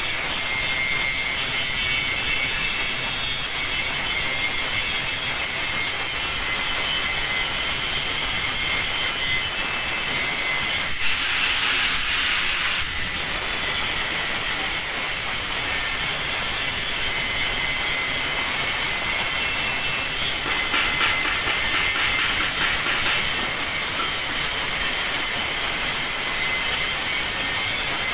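Stick-welding arc crackling and hissing steadily as a rod burns along a steel joint, with a brief louder stretch and a thin rising whine about eleven seconds in.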